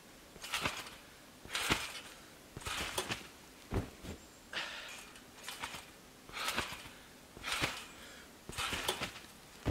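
A person moving through deep snow and bouncing on a trampoline: soft crunching thumps about once a second, with one deeper thud about four seconds in.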